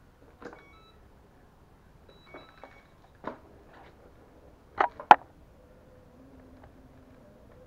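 A few scattered sharp knocks and clicks, the loudest two close together about five seconds in, with a faint steady hum coming in near the end.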